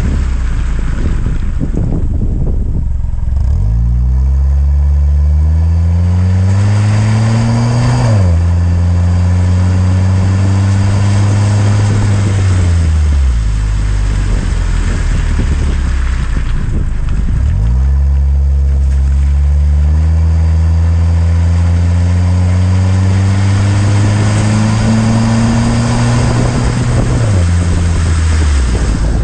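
Chrysler PT Cruiser's four-cylinder engine heard through its Gibson cat-back exhaust and JBA header, pulling hard twice: the exhaust note climbs in pitch for several seconds, then drops suddenly at a gear change. Between the two pulls it cruises steadily and then falls away as the throttle is lifted.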